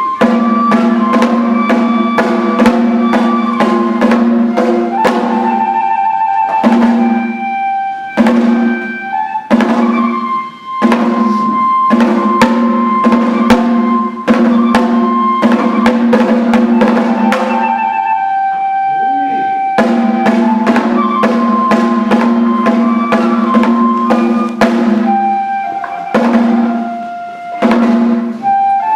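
Kagura hayashi music: a flute holding long notes over drum strikes that fall about twice a second.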